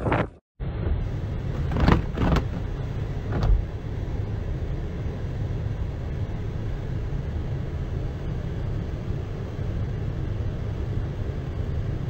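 A vehicle driving, heard from inside the cab as a steady low rumble, with a few short louder rushes in the first few seconds.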